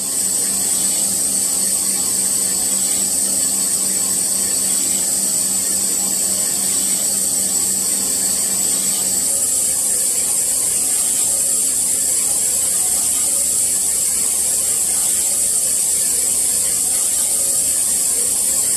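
Hankook vertical lathe turning a high-tensile brass ring: a steady high hiss of the cut and of brass chips spraying against the machine guards, over a low machine hum. The sound shifts slightly brighter about halfway through.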